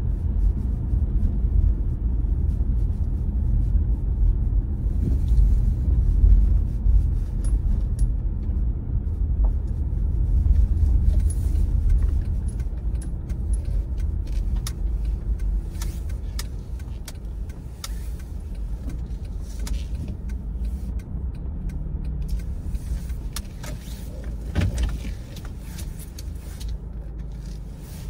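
Car driving: a steady low road and engine rumble, with scattered light clicks and rattles in the second half, growing quieter toward the end.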